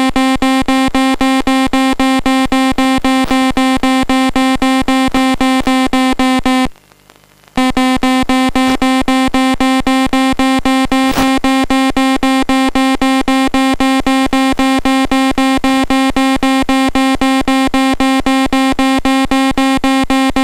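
Electronic variometer tone from the FPV telemetry audio, beeping rapidly at one steady pitch, about four beeps a second, signalling that the plane is climbing. It cuts out for about a second a third of the way in, then resumes.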